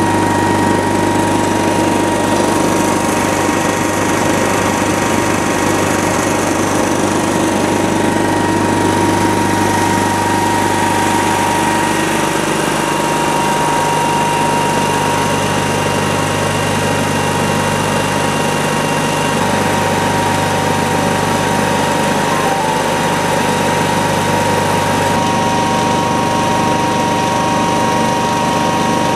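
Hatlapa L20 marine air compressor (30 bar, 1750 rpm, 6.3 kW) running steadily: an even mechanical hum with a thin steady whine above it.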